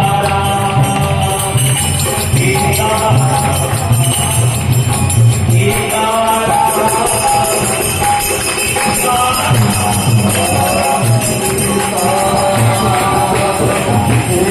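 Hindu devotional kirtan music led by a harmonium's sustained reed tones, with a drum pulsing in the low range and small cymbals jingling steadily.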